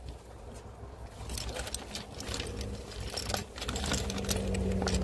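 Small wooden ornaments on a twig Easter tree clicking and clattering lightly against each other and the twigs as the tree is handled, with many quick, irregular clicks from about a second in. A low steady hum runs underneath.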